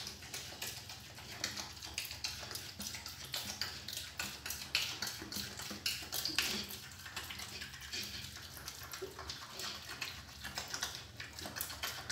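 A young pig eating dry feed pellets from a tray: a fast, uneven run of crunching and clicking.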